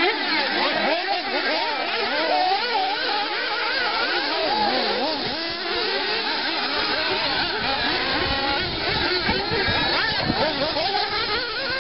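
Several 1:8 off-road nitro RC buggies racing at once. Their small two-stroke glow-fuel engines overlap, each one's pitch rising and falling constantly as it accelerates and backs off.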